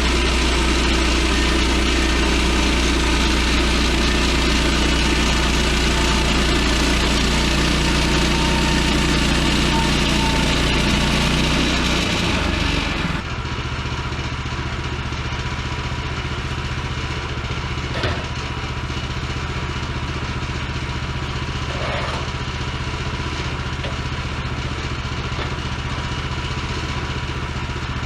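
Woodland Mills HM130MAX portable bandsaw mill running, its engine steady under load with a hiss over it for the first half. About halfway through the hiss fades, the sound drops a little, and the engine runs on more quietly and steadily.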